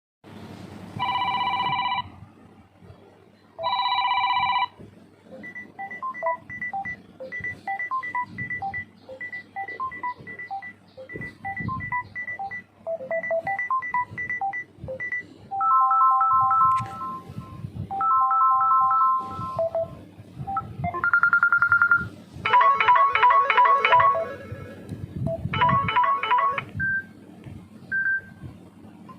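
Samsung Galaxy A01 ringtones played one after another. Two short bell-like ringing bursts near the start are followed by a long run of short repeated melodic notes, then several different brief electronic tone patterns, over a steady low hum.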